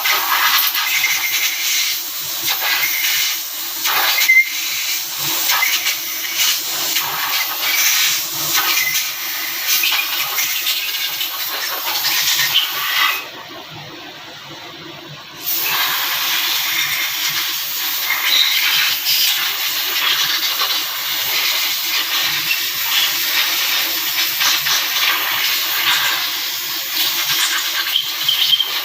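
A loud, steady hiss, like a jet of air or spray. It cuts out for about two seconds near the middle, then starts again.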